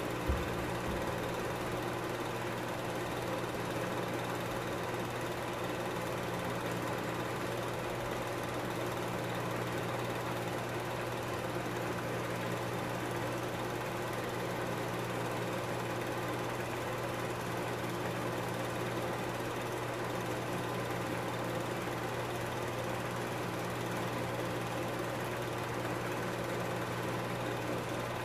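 Film projector running: a steady motor hum with a continuous mechanical whirr from the film transport, unchanging throughout.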